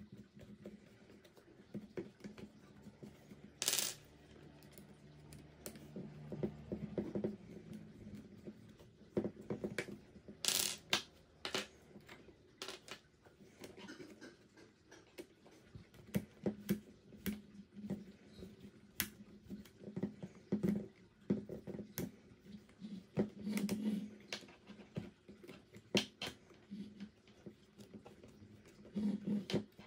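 Scattered small clicks and knocks of a hex driver and hard plastic RC car chassis parts being worked and pulled apart on a wooden table, with a couple of sharper clacks about four seconds in and around ten seconds in.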